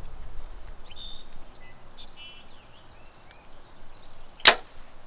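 A compound bow shot: one sharp, loud crack as the string is released, about four and a half seconds in.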